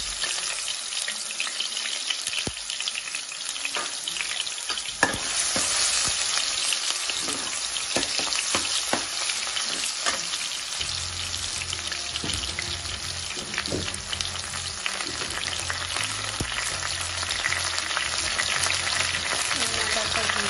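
Chopped garlic sizzling in hot oil in a kadai while being stirred with a steel ladle: a steady frying hiss with frequent sharp crackles and pops. This is the start of the tadka, with the garlic being fried until lightly browned.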